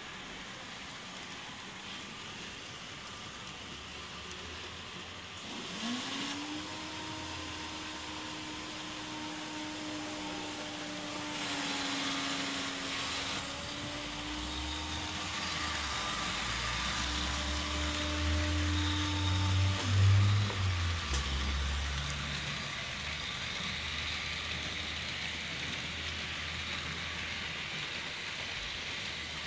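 Model trains running on a large Märklin layout: a steady whir of small electric locomotive motors and wheels on track. About six seconds in, a motor hum rises briefly in pitch and then holds until about twenty seconds in. A low rumble builds under it and is loudest about twenty seconds in.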